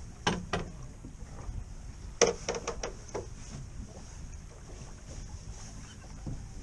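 Sharp knocks and clicks of gear on a small fishing boat, a pair near the start and a quick run of five or six about two seconds in, over steady wind and water noise.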